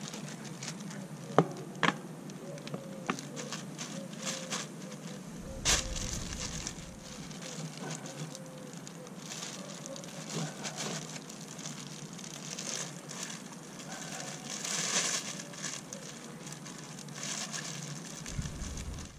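Handling and fitting of a unicycle's seat clamp and saddle: scattered small clicks and knocks over a steady hiss, with two sharp clicks in the first two seconds and another about six seconds in.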